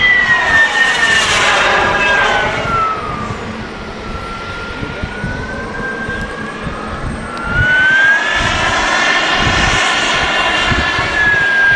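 Turbine engine of a CARF J-10 radio-controlled model jet whining in flight. The whine falls in pitch and fades about two to three seconds in, then rises again and grows louder about eight seconds in.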